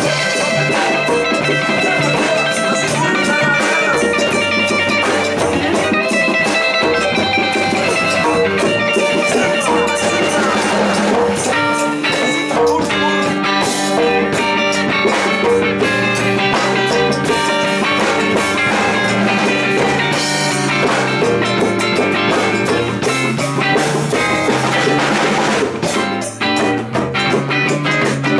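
Live music: electric guitars playing over hand-beaten djembe drums.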